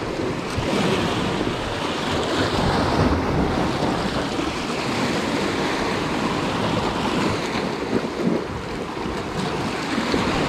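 Sea surf washing steadily against the rocks below, with wind noise on the microphone.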